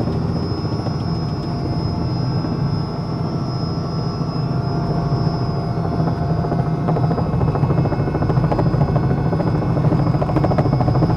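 Helicopter running under power: the fast, steady beat of the rotor blades over a constant high turbine whine, growing slightly louder in the second half.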